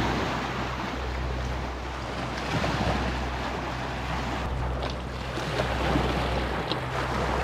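Small waves of Lake Superior lapping and washing over sand and flat rock slabs at the water's edge, with a low rumble of wind on the microphone.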